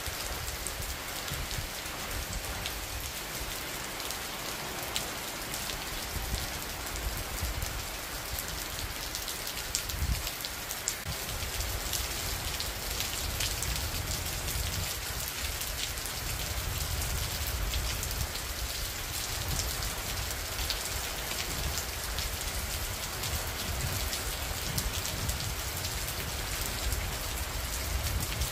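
Steady rain falling, with many small drop ticks over an even hiss and a low rumble underneath; a brief low thump about ten seconds in.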